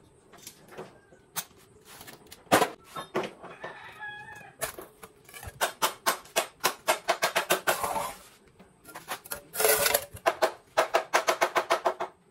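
A hand ratchet clicking in quick runs of sharp metallic clicks, about five a second, as engine bolts are turned, with a few single knocks of tools on metal between the runs. A rooster crows about three seconds in.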